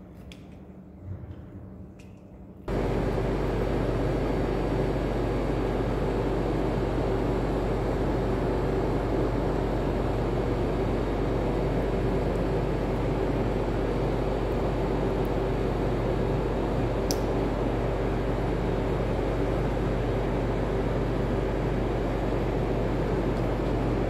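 A steady mechanical hum and hiss, like a fan or ventilation unit running, that switches on abruptly about three seconds in after a quieter stretch and then holds level, with a faint click or two.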